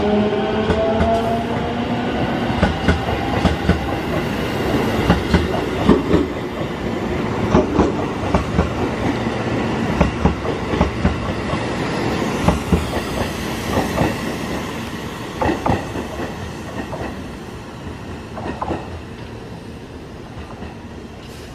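JR Central 373 series electric multiple unit pulling out. A rising motor whine dies away in the first second, then the wheels clack over rail joints as the cars roll past. The clacks and rumble fade as the train draws away.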